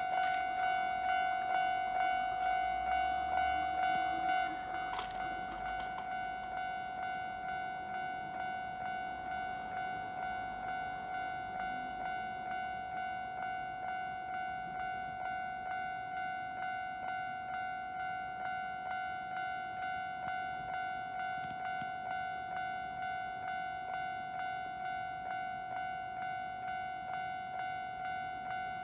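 Japanese railway level-crossing warning bell ringing in an even, repeating ding at about one and a half strikes a second. It gets a little quieter about four and a half seconds in, with a faint low rumble under it during the first few seconds.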